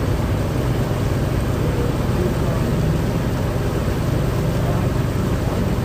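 A boat's motor running steadily under way, a constant low hum with a wash of wind and water noise over it.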